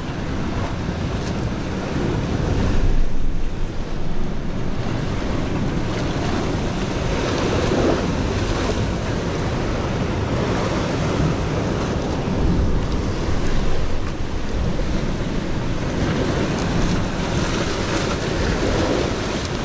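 Sea surf surging and washing through a narrow rock channel, swelling louder with a few surges, over wind rumbling on the microphone.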